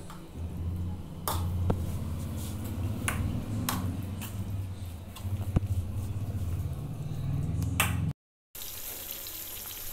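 Kitchen handling noise over a low pulsing hum, with a few sharp clinks and knocks of utensils on steel cookware. After a brief break about eight seconds in comes a steady hiss of sliced raw banana frying in oil for banana chips.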